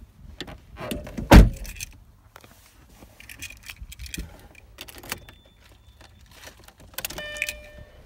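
Car keys jangling and clicking, with one loud thump about a second and a half in and a short electronic tone near the end.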